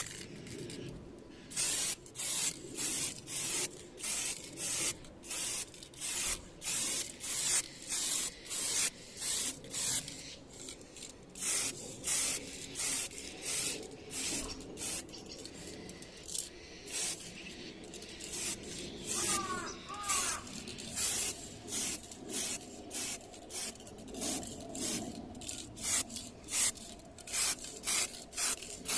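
Paint being sprayed onto car bodywork in short hissing bursts, one after another about once a second, with a few longer pauses: the refinishing stage of a home body repair.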